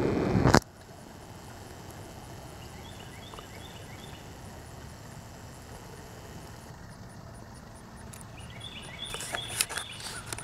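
Quiet outdoor ambience: a steady low rumble with a faint, high insect chirp repeating at an even pace. A brief loud rush of noise opens it, and a few knocks near the end come from the camera being handled.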